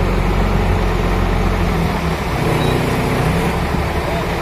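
Heavy diesel engine running with a steady low drone.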